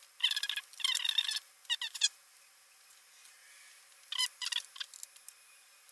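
A run of short, high-pitched squeaks from a pentalobe precision screwdriver being twisted under firm pressure, tightening the screws of a MacBook Air's aluminium bottom case. Several squeaks come close together in the first two seconds, then a few more about four seconds in.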